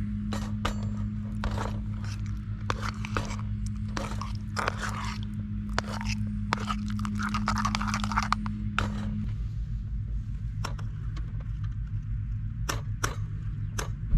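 Hands-on handling noise: a string of sharp clicks and knocks with stretches of scraping, over a steady low hum that stops about nine seconds in.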